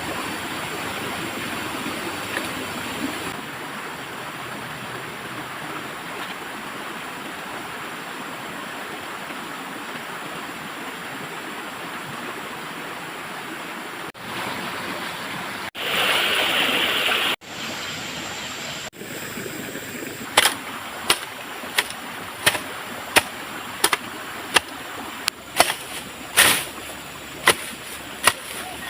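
A steady rush like running water, broken by a few abrupt cuts. In the second half, a run of sharp knocks, about one to two a second, like a tool striking wood or bamboo.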